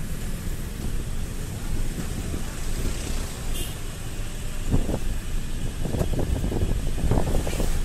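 A motorcycle riding along a town road: steady low engine and road rumble, with wind buffeting the microphone, gustier from about five seconds in.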